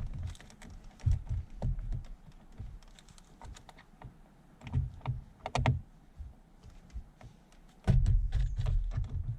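Plastic armrest lid and hinge parts being handled and worked into place: scattered light clicks and knocks, with a run of low thumps near the end.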